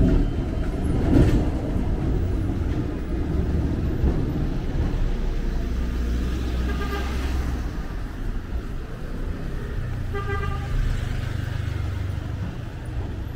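City street traffic with vehicle engines running, a steady low rumble. A car horn sounds twice: once a little past halfway, and again about three seconds later.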